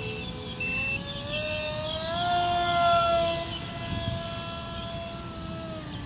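RC model MiG-15's motor whining steadily, rising in pitch about two seconds in as it throttles up, then holding and easing down slightly near the end. A repeated high-pitched beeping sounds during the first couple of seconds.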